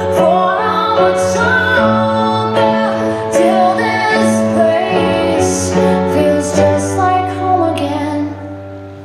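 A slow song with a woman singing over sustained held notes, growing quieter near the end.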